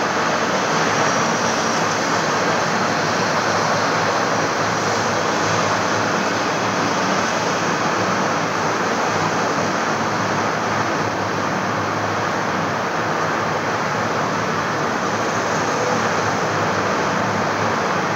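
Steady, even hiss with a low hum underneath: the room's constant background noise, with no other sound standing out.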